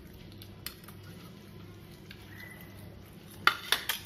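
Steady low hum in a quiet room, with a quick cluster of three or four sharp clicks about three and a half seconds in.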